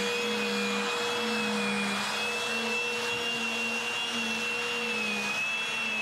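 Hoover WindTunnel 3 pet vacuum's 12-amp motor running, with its spinning pet hair brush tool sucking pet hair off a carpet mat. A steady rushing air noise with a high whine that wavers slightly in pitch.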